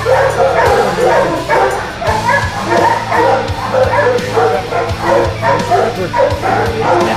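Many kennelled dogs barking and yelping at once, a continuous overlapping din, with music underneath.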